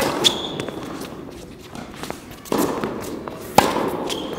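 Tennis ball struck by racket strings and bouncing on the court, with sharp pops at the start and again about three and a half seconds in, echoing in an indoor hall. Running footsteps can be heard between the shots.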